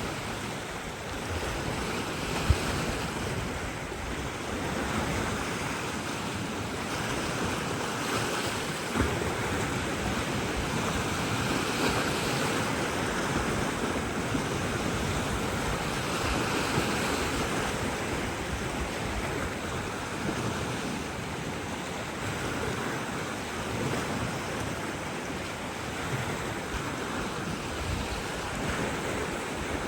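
Surf washing on a shore: a steady rushing that swells and eases every few seconds, with wind on the microphone. Two brief knocks stand out, one early and one about nine seconds in.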